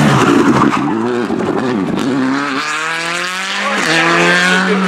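Rally car engine passing close, its note falling and wavering as it slows for the bend, then rising steadily as it accelerates away. There is an upshift about a second before the end.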